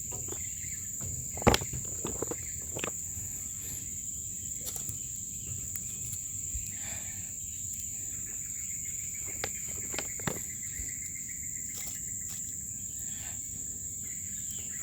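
Steady high-pitched insect chorus, with a few sharp clicks and knocks over it, the loudest about a second and a half in and a small cluster near the middle.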